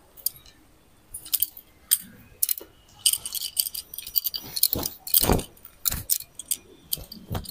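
Wet laundry being hung on a clothesline: clothespins clicking and rattling, and a wet cloth shaken out with a few sharp flaps, the loudest about five seconds in and again near the end.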